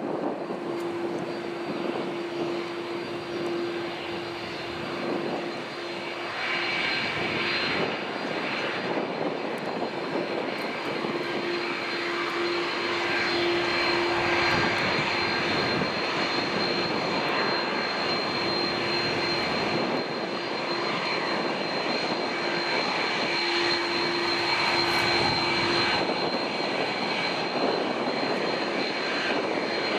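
Airbus A330-200's twin jet engines running at taxi power as the airliner turns onto the runway. A steady high whine sits over a broad even rumble, with a lower hum that comes and goes.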